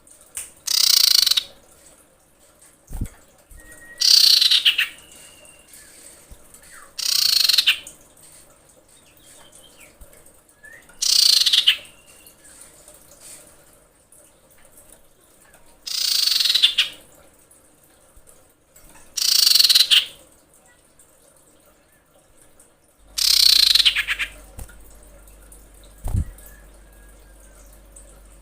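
Female common iora calling to attract a male: a harsh, rasping note that sweeps downward, repeated seven times at intervals of three to four seconds, with faint thin whistles in between.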